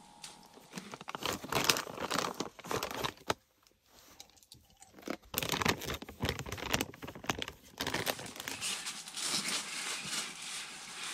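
A plastic trail-mix pouch crinkling and rustling as it is handled, in irregular bursts with a short pause about four seconds in, followed by softer rustling.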